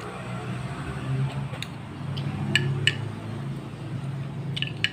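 A person eating: chewing, with a few short sharp clicks and clinks, over a steady low hum.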